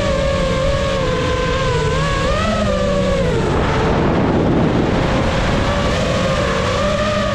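Motocross motorcycle engine running hard under throttle, its pitch wavering up and down. About three seconds in, the engine note gives way to a noisy rush for a couple of seconds, then comes back steady near the end.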